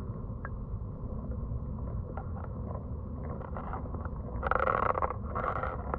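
Muffled low rumble of river water around a submerged camera, with a few faint ticks. Two short, louder rushing noises come near the end.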